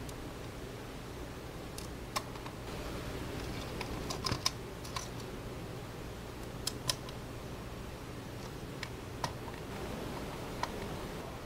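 Irregular light clicks and taps from a small screwdriver driving copper pillar screws into the metal base of a GeoVision fixed IP dome camera, with a cluster about four seconds in. A steady low hum runs underneath.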